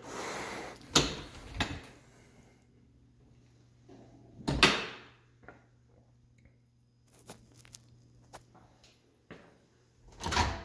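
Kitchen appliance doors being handled: a dishwasher door pulled open with a rush and a couple of knocks, a loud thud about four and a half seconds in, a few light clicks, then a microwave door popping open near the end.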